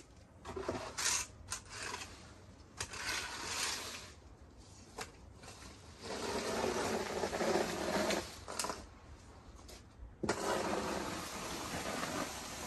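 Scraping and rustling of a long-handled garden tool working over a dirt path, in irregular strokes with a few sharp clicks, the longest stretch of scraping about six seconds in.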